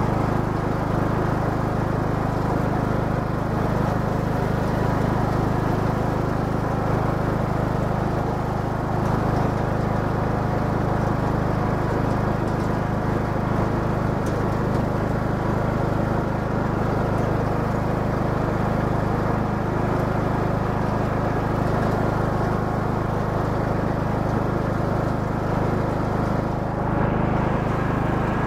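Riding lawn mower's engine running steadily under way, a constant low drone heard close up from on board.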